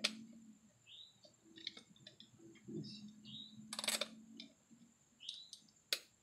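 Faint small clicks and taps of a retaining clip being worked back into a truck door-handle mechanism. The loudest click comes about four seconds in, and another sharp one comes near the end.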